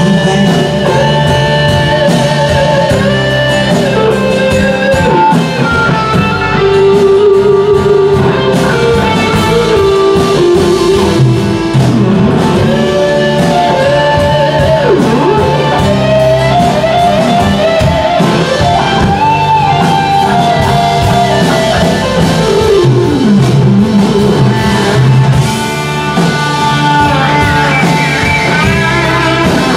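Live rock band playing an instrumental passage: an electric guitar lead with bending, gliding notes over strummed acoustic guitar and drums.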